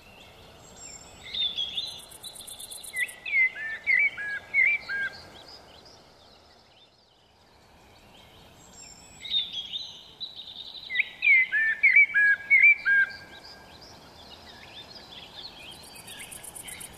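Birdsong over a steady outdoor hiss. One bird sings a phrase of quick chirps and short falling whistles twice, about eight seconds apart.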